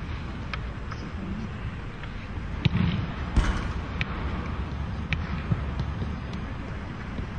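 A football being kicked and juggled: scattered sharp touches on the ball, irregularly spaced, the two loudest about three seconds in, over a steady low background rumble.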